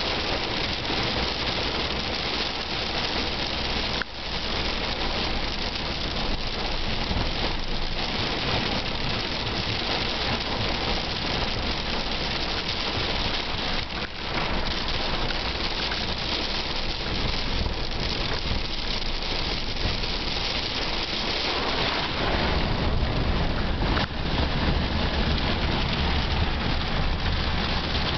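Hard rain drumming steadily on a vehicle's roof and windows, heard from inside the cabin. A deeper low rumble joins about three-quarters of the way through.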